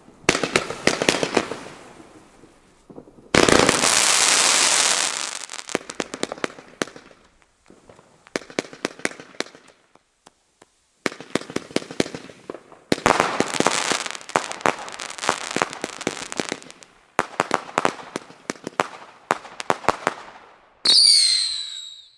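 Royal Class 'The Viking' 70-shot small-calibre firework cake firing its tubes in quick succession: volleys of sharp pops and crackling come in groups a few seconds long, with short lulls between them. About three and a half seconds in there is a loud dense hissing burst, and near the end a short whistle that falls in pitch.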